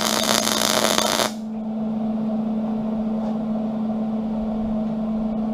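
Arc welding a tack on steel flat bar: the crackling arc stops abruptly about a second in. A steady hum runs underneath.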